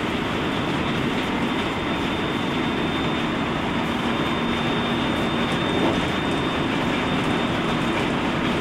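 Interior of a JR West Special Rapid Service electric train running between stations: a steady rumble of wheels and running gear on the track, with a faint steady high tone above it.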